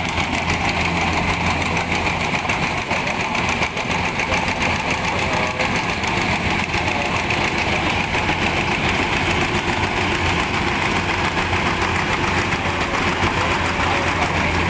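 Engine of a rice harvesting machine running steadily with a fast, even chugging.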